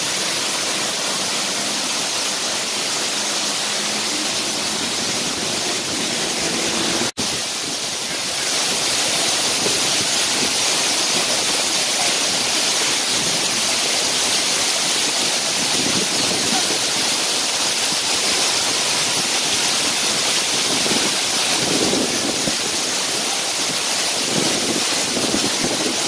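A waterfall sheeting down a rock face and splashing into a pool: a steady rushing of water, cutting out for an instant about seven seconds in.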